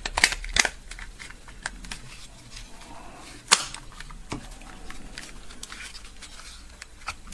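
Plastic clicks and snaps as the two halves of a TV remote control's casing are squeezed together, with the sharpest snap about three and a half seconds in.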